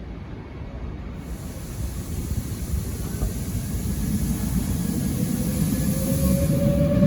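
Train running through the station: a low rumble that grows steadily louder, with a hiss and a single tone that slowly rises in pitch over the second half.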